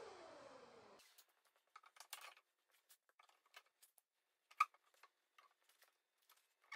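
A large router coasting down and fading out over the first second, then scattered faint clicks and taps from handling the dovetail jig and workpiece, one sharper click about halfway through.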